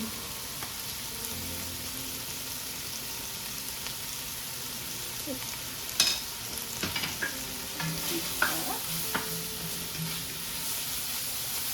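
Diced onion, carrot and celery sizzling steadily in olive oil in a pan over medium heat. A utensil stirs them, with sharp knocks and scrapes against the pan from about six seconds in.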